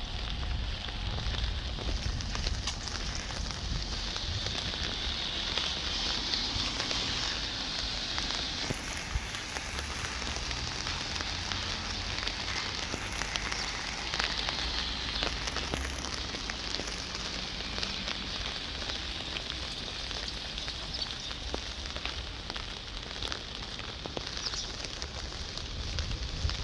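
Steady rain falling, with a dense patter of many small drop taps close to the microphone over a low rumble.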